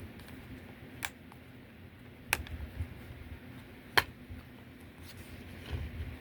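A DVD case being handled, with three sharp clicks spaced a second or two apart over low, uneven handling noise.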